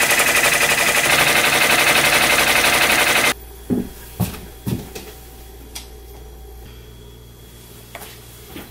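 Brother multi-needle embroidery machine stitching at speed, a rapid, even chatter of needle strokes that stops abruptly about three seconds in. A few light knocks and clicks follow.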